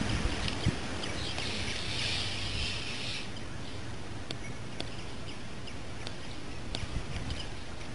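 Outdoor ambience with scattered short bird chirps, and a steady hiss lasting about two seconds starting about a second in.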